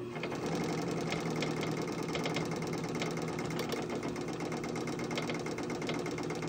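A United States Blind Stitch Machine Model 99WB-1 starts up and runs steadily, a motor hum under a fast, even clatter of the needle and hook stitching a trouser hem.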